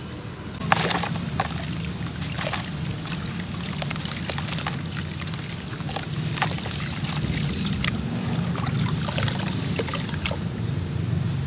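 Damp sand-cement block broken up by hand into a tub of water: a splash about a second in as it drops and crumbles, then irregular sloshing and splashing as the wet lumps are squeezed and churned under the water.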